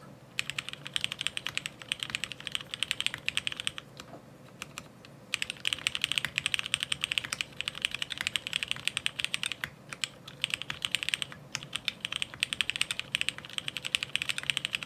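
Fast typing on a mechanical keyboard with a ceramic housing: dense runs of key clacks, broken by a pause of about a second and a half roughly four seconds in.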